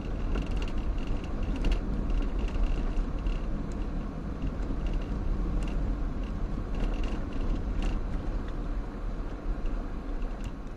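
Car driving slowly over patched, potholed asphalt, heard inside the cabin: a low rumble of engine and tyres with scattered rattles and creaks as the car jolts over the rough surface.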